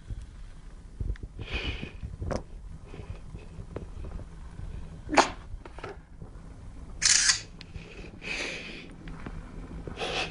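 Low rumble of a handheld phone microphone being moved about, with several short breathy hisses, the loudest about seven seconds in.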